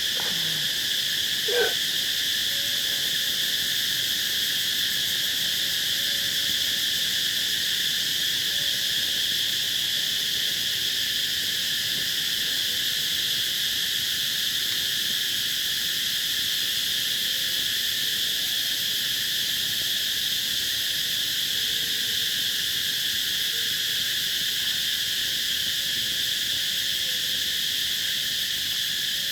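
A chorus of many cicadas, a steady high-pitched drone that is very loud.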